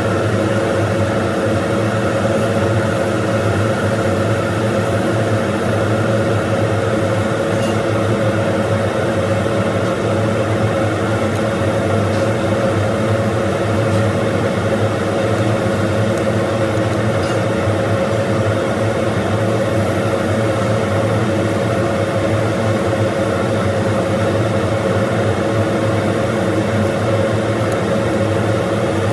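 TIG welder running during steel welding, a steady, unbroken electrical hum with a strong mid-pitched tone over a hiss.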